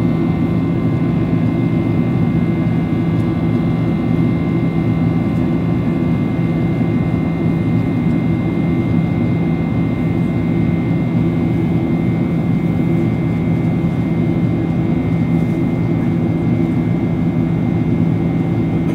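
Cabin noise of a Boeing 767-400(ER) climbing after takeoff, heard from inside next to the wing: the turbofan engines and airflow make one steady, unchanging drone with a strong low hum and a few faint steady higher tones.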